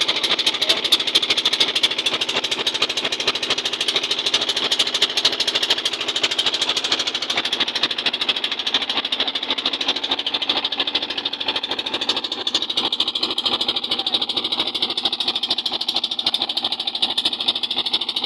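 A fishing boat's small engine running steadily with a rapid, even knocking beat.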